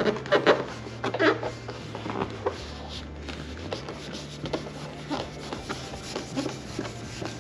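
Hands rubbing, pressing and smoothing vinyl wrap film onto a plastic body panel: scattered light rustles, crinkles and taps. A low steady hum that changes pitch a few times runs underneath.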